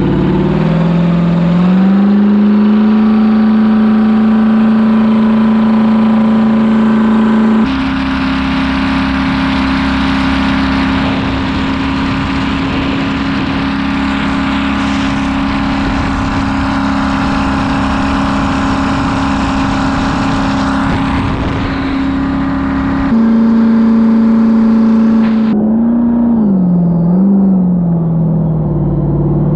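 A 6.0-litre LS V8 in a Yamaha WaveRunner FZR jet ski running hard under way. Its note climbs over the first couple of seconds and then holds steady, over a rushing hiss of spray. The pitch jumps abruptly twice, and near the end the engine briefly drops off and comes back up.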